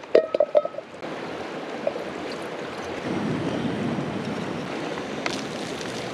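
Light metal clinks of a camping stove pot being handled in the first second, then the steady rush of a river, which swells a little about three seconds in.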